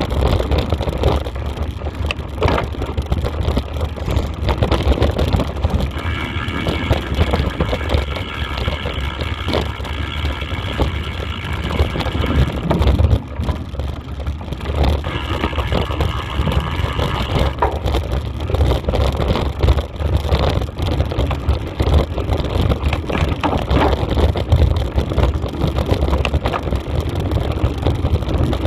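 Wind buffeting the microphone of a camera riding on a mountain bike, with the rattle of tyres on a dirt trail at speed. A high whine joins in twice, first for about six seconds and then for about two and a half seconds.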